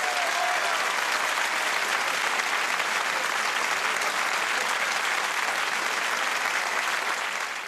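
Studio audience applauding steadily at the end of a live rock song.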